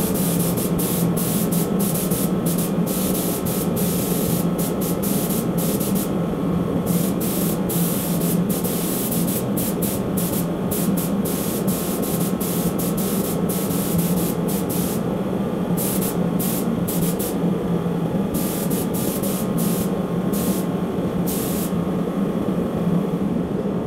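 Compressed-air spray gun spraying a thin coat of 5:1 filler primer. The gun hisses in short trigger pulls that start and stop many times, over a steady low hum.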